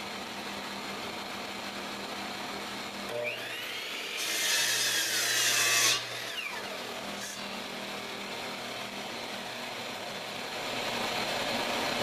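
Compound miter saw (chop saw) motor spinning up about three seconds in. Its blade then cuts through a walnut board at a 45-degree angle for about two seconds, the loudest part, and the motor winds down, over a steady background hiss.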